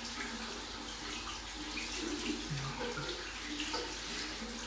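Water running steadily from a tap and splashing into a basin or tub.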